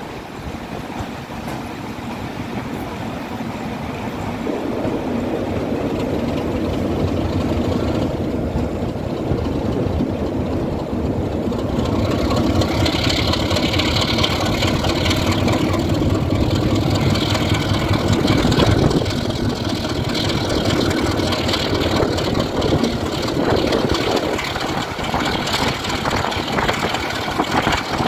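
Class 33 diesel locomotive's Sulzer eight-cylinder engine running under power as it hauls the train, growing louder over the first dozen seconds. A hiss of wind and rail noise joins about twelve seconds in.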